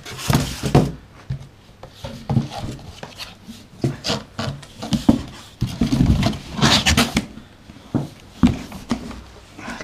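Polystyrene foam packing and cardboard rubbing and scraping in bursts as a boxed DJ mixer is lifted out of its shipping carton, with a sharp knock about eight and a half seconds in.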